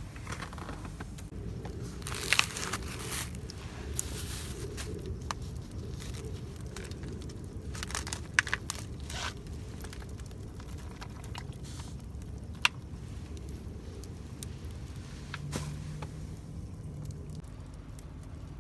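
Rustling and crinkling handling noises with a few sharp clicks, about four spread through, over a steady low hum.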